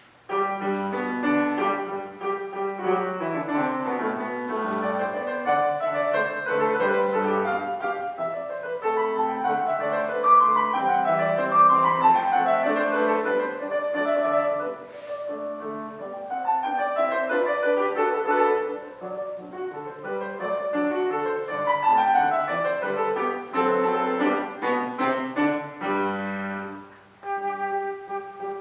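Piano playing the orchestral introduction of a concerto, with repeated fast descending runs over chords. After a short break near the end, a solo flute comes in on long held notes.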